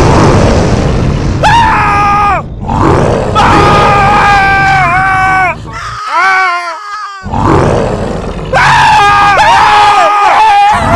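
A loud, dense rumble with high wailing cries over it. The cries fall away at the end of each one, break off briefly about two and six seconds in, and return several times.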